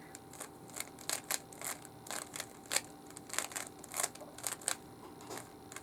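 Rubik's cube faces being turned by hand: a quick, irregular run of plastic clicks and scrapes as the layers snap round.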